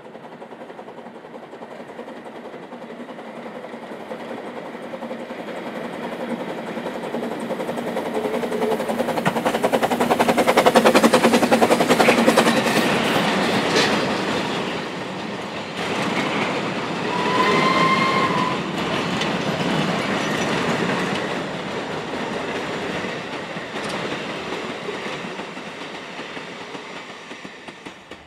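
Narrow-gauge steam train running past, with the beat of the exhaust and the clatter of wheels and carriages growing to its loudest about eleven seconds in. A short whistle blast sounds a few seconds later, and then the train slowly fades away.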